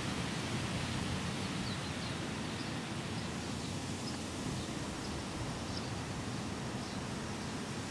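Steady outdoor wind noise buffeting the microphone, a low, fluttering rush, with a few faint high chirps in the first half.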